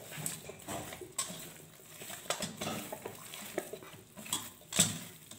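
Hands mixing raw chicken pieces with spice powders in a stainless steel bowl: irregular clicks, knocks and scrapes of meat and fingers against the metal. The sharpest click comes shortly before the end.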